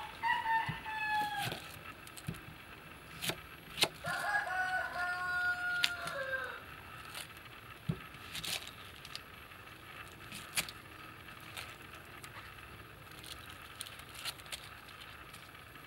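A rooster crowing twice, once at the start and again about four seconds in, each crow a held call that drops in pitch at the end. Between the crows come sharp taps of a knife on a wooden chopping board.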